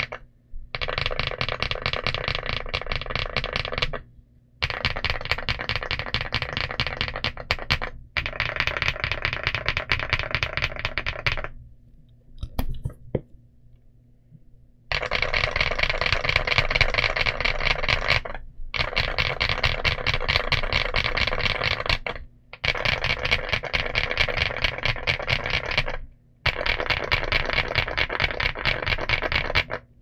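Mchose GX87 mechanical keyboard with KTT Vintage White linear switches and Drop MT3 Camillo keycaps being typed on fast. The typing comes in runs of a few seconds with short breaks, and a longer pause about halfway through.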